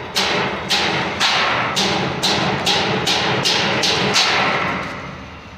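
Metal being struck with a hammer: a run of about ten sharp blows, a little under two a second and quickening slightly, each with a short ringing tail. The blows stop a little after four seconds in.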